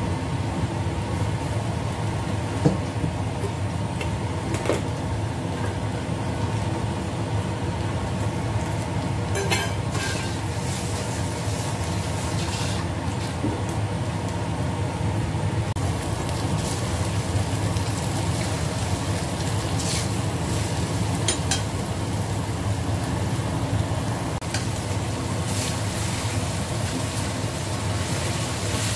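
Beaten egg and tofu frying in a stainless steel wok on a gas stove, over a steady low hum, with a few sharp clicks and scrapes of a metal spatula against the wok.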